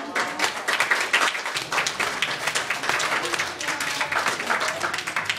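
A roomful of guests applauding, dense clapping that sets in sharply and holds throughout.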